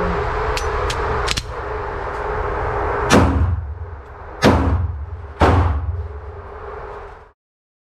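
Three pistol shots in an indoor range, the second about a second and a half after the first and the third about a second later, over a steady background hum.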